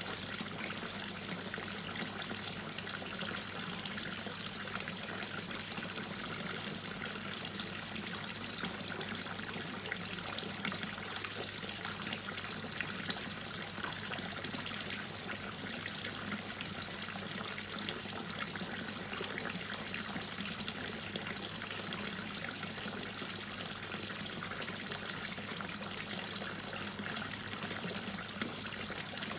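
Water dripping and trickling steadily: a dense patter of small drops over a constant watery wash, with a faint steady low hum beneath.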